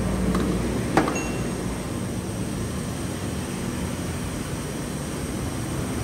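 Steady low hum and hiss of background machinery, with one sharp click about a second in.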